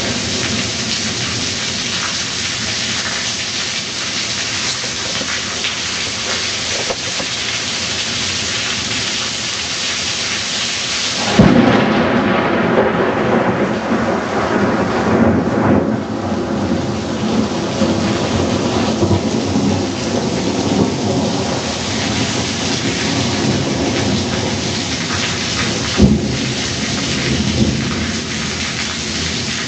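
Heavy rain falling in a thunderstorm, a steady hiss. About eleven seconds in a close thunderclap cracks sharply and rolls on as a low rumble for several seconds. A second sharp crack of thunder comes near the end.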